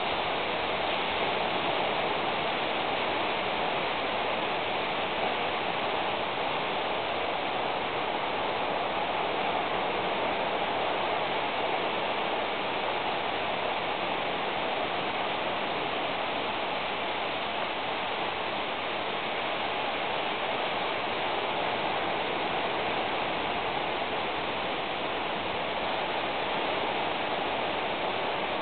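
Steady rushing noise, even and unchanging throughout, with no separate drops, clicks or tones.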